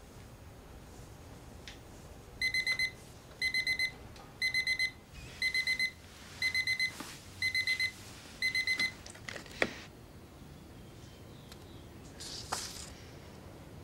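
Electronic alarm beeping: seven bursts of four quick, high beeps, about one burst a second, which stop after about six seconds. A sharp click follows, then a short rustle of bedding.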